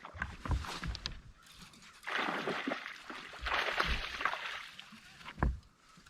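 Water splashing and sloshing in two bursts of about a second each, with a few short low thumps, as a hooked bass thrashes at the surface next to the boat.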